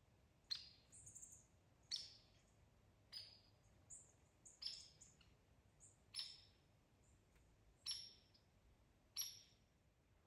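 A bird calling repeatedly in the woods: about seven short, sharp, high calls, evenly spaced roughly a second and a half apart, with fainter higher chirps between them.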